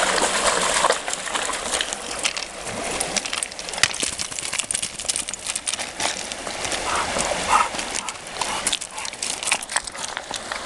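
A Labrador retriever splashing about in a rocky river while the water runs steadily. From about four seconds in come many irregular sharp clicks and knocks, stones striking stones as the dog roots for them underwater.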